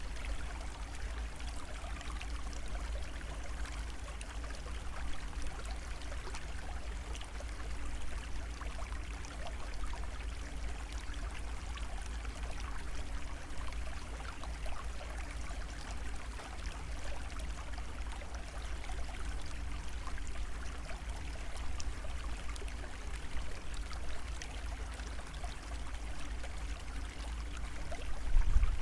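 Steady sound of flowing water, like a running stream, with a low hum underneath.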